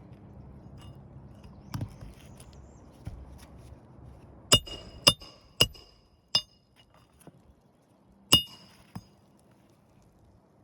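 Hammer striking roofing nails with sharp, ringing metallic blows: four strikes about half a second apart midway, then one more near the end, with a softer knock about two seconds in.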